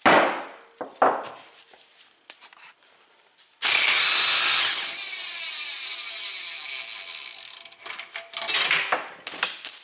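A cordless power tool runs steadily for about four seconds, spinning a freewheel removal tool to unscrew an already-loosened Shimano freewheel off a bicycle's rear hub. A few knocks come before it and a spell of clicking after it as the freewheel comes free.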